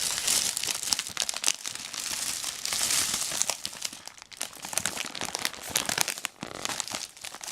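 Plastic food packaging being handled close up, crinkling and crackling in quick irregular bursts, with two brief lulls.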